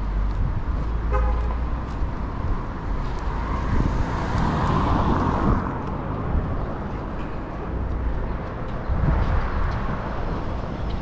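City street traffic: engines rumbling steadily, with a short horn toot about a second in. A vehicle passes close between about four and six seconds in.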